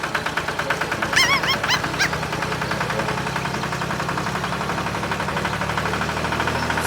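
Small engine running steadily with a fast, even rattle. A few short honking bird-like calls come about a second in.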